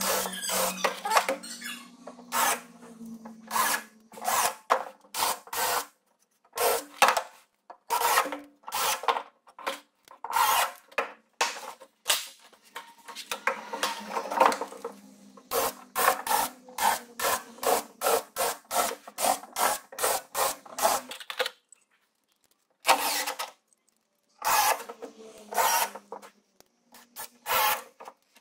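Repeated short scraping and rubbing strokes on larch boards, about one or two a second, in runs with short pauses. A low steady hum runs under the first few seconds.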